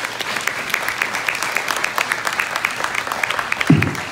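Audience applauding, many hands clapping. There is a single low thump near the end.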